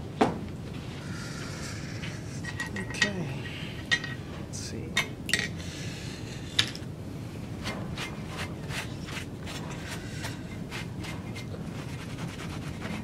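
Small metal parts and hand tools clinking and knocking against a steel base plate as they are picked up and set down: a few sharper knocks in the first seven seconds, then lighter, quicker ticks.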